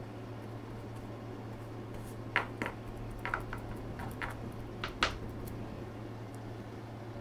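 Paintbrush stippling wet epoxy resin into fiberglass cloth: several short dabs between about two and five seconds in, over a steady low hum.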